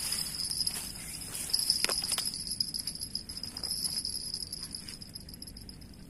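Insects droning steadily with a high, continuous tone that fades near the end, with a couple of short clicks about two seconds in.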